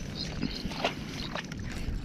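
Rustling in dry grass and handling noise, with a few short clicks a little under a second in and again about half a second later.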